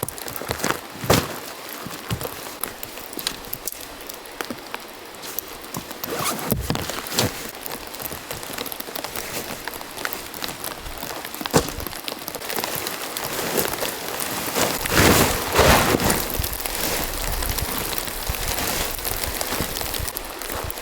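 Rain falling steadily, with many sharp drips and knocks scattered through it and a louder stretch of noise about fifteen seconds in.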